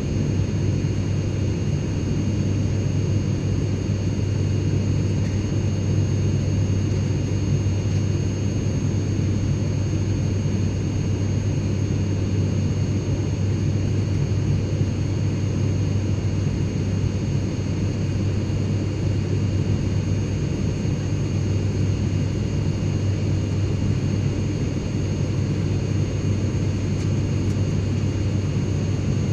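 Airliner cabin noise in flight: a steady low rumble of engine and airflow, with a few faint high steady tones above it.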